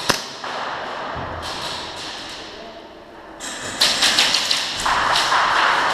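Airsoft gunfire and BB hits on plywood walls in an indoor arena: a sharp crack at the start, then a rapid run of taps and cracks from about three and a half seconds in.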